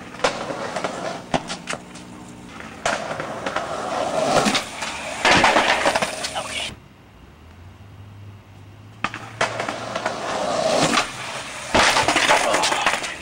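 Skateboard rolling on pavement with sharp clacks and bangs as the board and the skater hit the ground. There are two runs with a quieter gap between them, and each ends in a fall.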